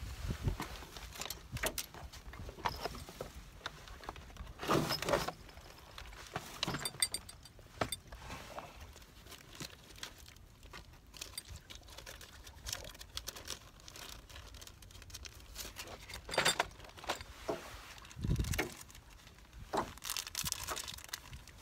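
Close handling noise: fabric rustling with small irregular clicks and knocks as hands work with clothing and gear right by the microphone.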